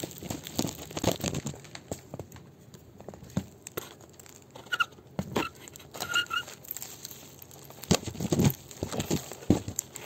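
Camera on a pole scraping and knocking over gritty, sand-covered wooden ceiling boards in an old house's roof space, with the rustle of loose grit being pushed around. A few short high squeaks come about halfway through.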